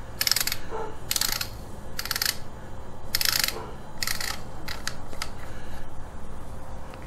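Top sling swivel being twisted off the magazine cap of a Remington 870 pump shotgun by hand: short scratchy metal-on-metal bursts, about one a second, one for each twist.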